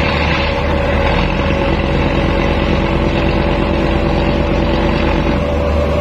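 Boat engine running steadily at low speed: a continuous low rumble with a steady hum over it, and a second, lower hum that comes in about a second and a half in and fades near the end.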